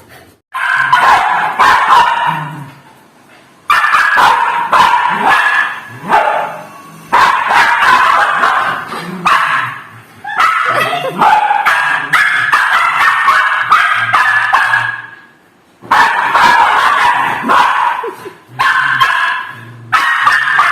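Dogs barking and yipping in loud bouts of a few seconds each, with short pauses between them.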